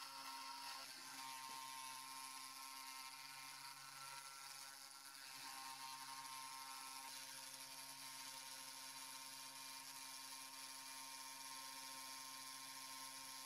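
Eleksmill desktop CNC router's spindle motor running at a steady whir with a constant hum, as a 2 mm end mill slowly cuts a 1.2 mm aluminium sheet.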